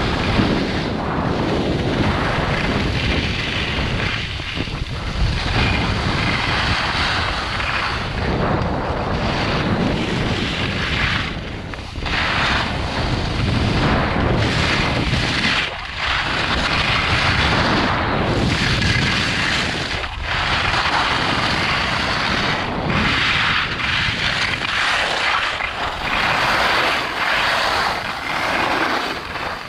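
Wind rushing over the microphone together with the hiss and scrape of edges sliding over groomed, packed snow during a fast downhill run. The noise dips briefly every few seconds, as the descent moves from one turn to the next.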